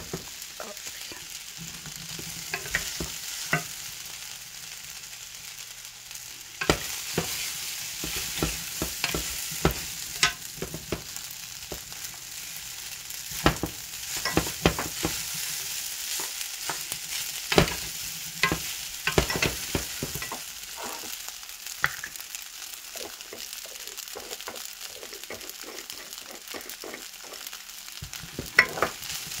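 Shrimp and vegetable fried rice sizzling in a frying pan while a wooden spatula stirs it, with frequent irregular scrapes and taps of the spatula over a steady sizzle.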